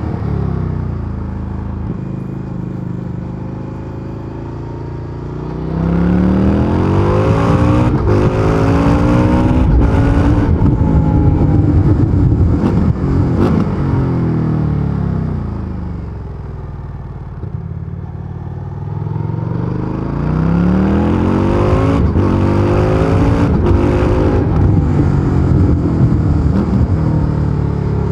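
2023 Indian FTR Sport's 1203 cc V-twin through its stock exhaust, ridden hard. The engine note falls off-throttle at first, then the throttle opens about six seconds in and the pitch climbs and drops in long sweeps. It backs off around sixteen seconds and pulls hard again from about twenty seconds.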